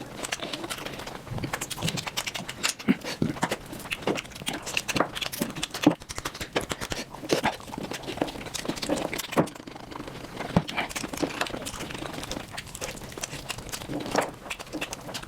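Close-miked eating sounds of mutton nalli played at high speed: a rapid, irregular run of wet chewing clicks and lip smacks.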